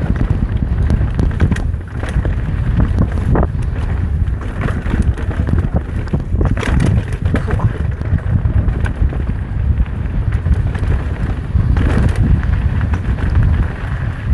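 Electric mountain bike descending a rough dirt trail at speed: steady tyre rumble and wind buffeting the microphone, with scattered knocks and rattles from the bike hitting bumps.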